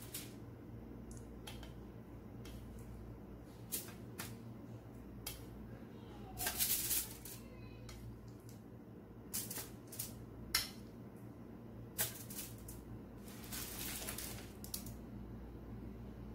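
Stainless-steel tongs clicking and aluminium foil crinkling as pieces of marinated chicken are set down on a foil-lined tray. Scattered sharp clicks, with two longer rustling bursts about a third of the way in and near the end, over a low steady hum.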